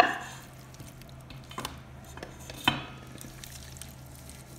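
Steel cookware knocking together as cooked beef chunks are tipped from a pot into a wide stainless steel pan and pushed out with a wooden spoon: one ringing clang at the start, then two lighter knocks, with the soft sound of the meat sliding in.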